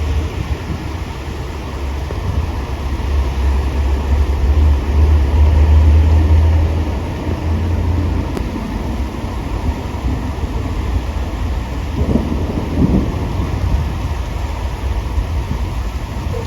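Heavy storm rain falling, with a deep rumble that builds over the first several seconds and fades about eight seconds in.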